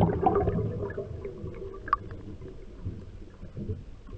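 Scuba diver's exhaled bubbles from the regulator, heard through the water, dying away over the first second, then a low underwater rumble with a few faint clicks and one sharper click about two seconds in.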